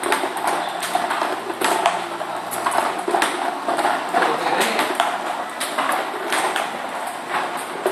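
Table-tennis balls clicking off the table and a paddle in quick succession, a few light clicks a second, as a DIY ball-feeding robot serves balls to a player.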